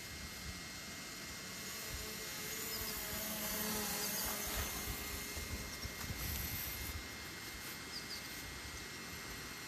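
Steady hiss with the faint whine of a quadcopter drone's motors, wavering in pitch and a little louder from about two seconds in until around the seven-second mark.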